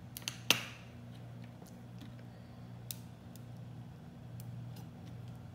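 Plastic glue bottle being opened at its cap, with a few sharp clicks in the first half-second, the loudest about half a second in, then faint scattered plastic ticks as the bottle is tipped and squeezed. A steady low hum runs underneath.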